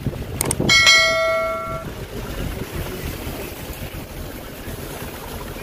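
Vehicle running along the road: a steady low rumble of engine and road noise. About a second in come a couple of clicks and a short pitched ringing tone that fades out.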